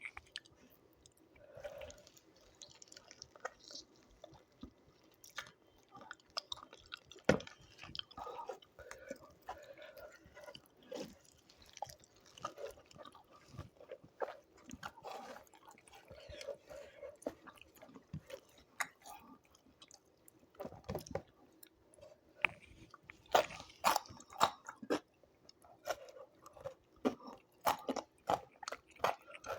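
A person eating close to the microphone: mouth sounds of chewing rice and chicken, with irregular small crunches and clicks, busier near the end.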